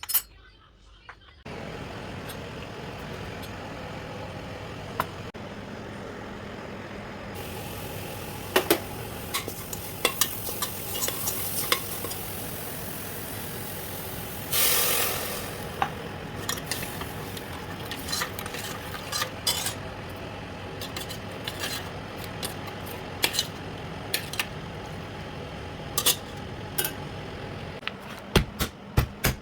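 Food sizzling in a hot pan while a metal spoon stirs, clinking and scraping against the pot. About halfway through there is a louder hiss lasting about a second.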